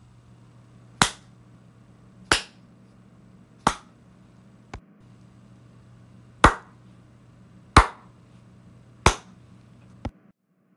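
Single hand claps, one sharp clap at a time about every second and a quarter, six in all with a longer gap in the middle and two fainter clicks between them, over a faint steady hum.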